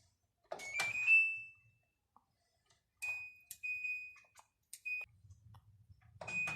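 Electronic control-panel beeps of a washing machine: a click and a short, slightly rising beep about a second in, then several more beeps at the same high pitch. A low hum starts near the end.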